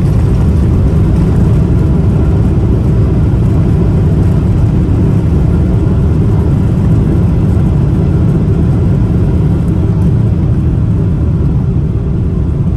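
Steady low rumble of a Boeing 777-300ER's GE90 engines and airflow, heard from inside the passenger cabin.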